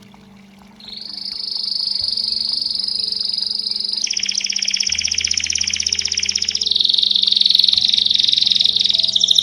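Belgian canary singing. It starts about a second in with a long, steady high whistled note, then switches about four seconds in to a rapid trill, which changes into further rolled trill phrases near the end.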